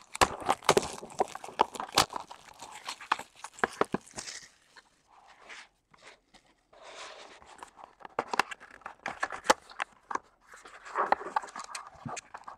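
Trading-card hobby box being cut open and handled by hand: cardboard and wrapping rustling, scraping and clicking in bursts, with a short lull about halfway through.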